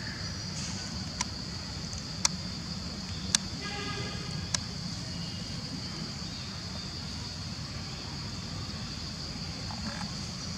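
Forest ambience: a steady high-pitched drone and a low rumble, broken by a few sharp clicks in the first half and a short pitched call about four seconds in.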